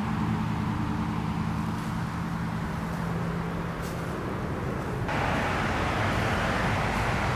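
Steady low engine drone, like motor traffic, under a rushing noise. About five seconds in, the rushing noise suddenly jumps louder and stays up.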